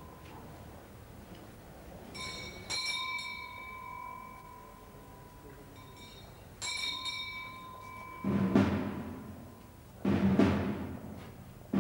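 A bell struck three times, two strokes close together and a third a few seconds later, each left to ring on. Then, from about eight seconds in, slow, deep procession drum beats about two seconds apart, louder than the bell.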